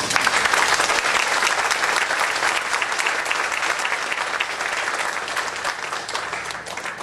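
Audience applauding: a dense clatter of many hands clapping that starts suddenly and thins out near the end.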